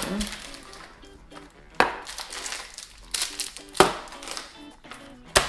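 Soft background music, with three sharp taps about two seconds apart as wrapped energy bars are set down one by one on a hard countertop.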